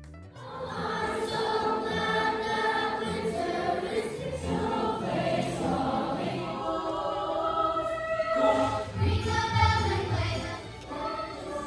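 Children's choir singing together, swelling a little louder about two-thirds of the way through.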